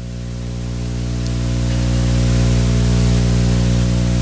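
A steady drone of several held low tones over hiss, growing steadily louder.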